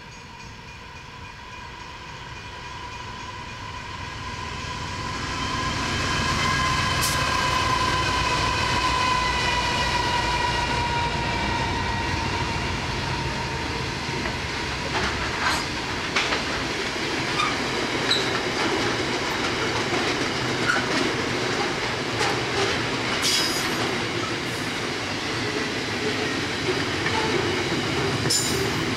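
Three NR class diesel-electric freight locomotives approach, growing steadily louder, with a steady whine that drops in pitch as they pass. A long freight train of wagons then rolls by, with wheels clattering over the rail joints and a few brief high wheel squeals.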